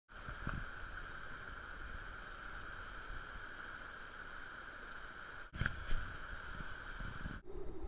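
Fast, shallow river water rushing over stones, a steady noisy wash, with wind rumbling on the microphone. The sound breaks off briefly about five and a half seconds in and changes abruptly near the end.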